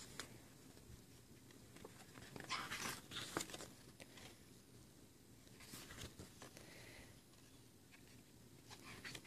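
Faint rustling and handling of an album's photo booklet as its glossy paper pages are turned, heard a few times between quiet stretches.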